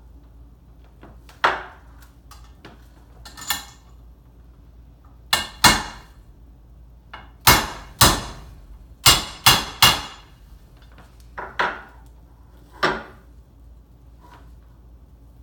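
Hammer tapping on metal, about a dozen sharp ringing strikes in uneven groups of one to three, as bearings are driven into a motorcycle engine's crankcase during a bottom-end rebuild.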